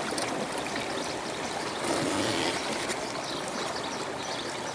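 Water lapping and trickling steadily against the hull of a small boat moving slowly across calm water.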